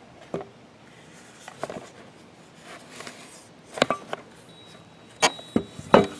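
Handling noise from an aluminium-cased e-bike battery charger being turned over in the hand, its cables shifting: scattered knocks and rustles, the loudest near the end as the charger is set down on the table.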